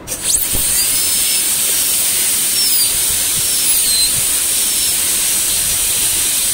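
High-speed dental air-turbine handpiece spinning up and running with its water spray: a steady high hiss with a faint whine that wanders in pitch. A flame-shaped diamond bur is reducing the palatal cingulum area of an upper central incisor for a porcelain jacket crown.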